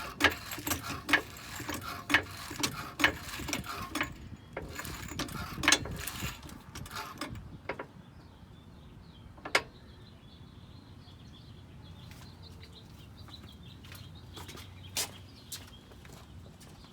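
Hydraulic floor jack being pumped to raise the rear of the car: a regular run of sharp metallic clacks, about one stroke a second, for roughly the first seven seconds. After that come a few single clicks.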